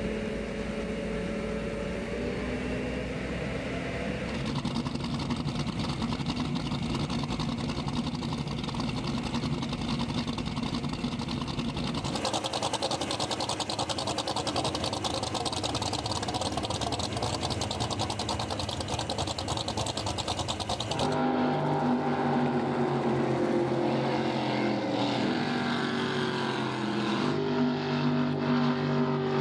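Offshore racing powerboat engines running: boats idling and moving at the dock, then, about twenty seconds in, a race boat running at speed on open water, louder, its engine pitch shifting.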